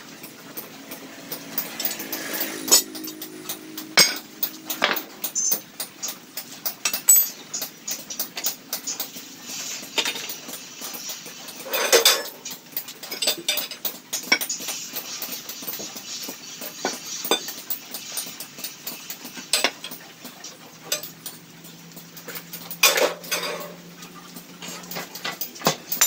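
Irregular metal clanks and knocks of a hand-lever tube bender being worked as a metal tube is bent, with louder clanks about twelve seconds in and again near the end.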